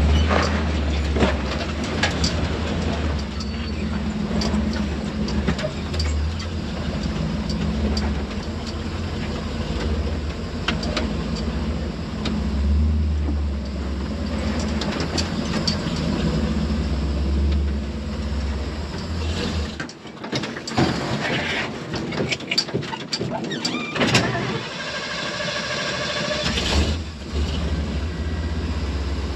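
Off-road truck engine running low and slow as it crawls over rock, with scattered clicks and knocks from tyres and suspension. About two-thirds of the way through the engine sound drops away for roughly four seconds amid a run of sharp clicks, then comes back.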